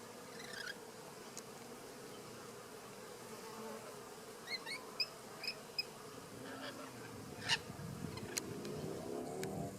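An insect buzzing steadily, its pitch shifting up and down near the end, with a few short high bird chirps around the middle and a couple of sharp clicks.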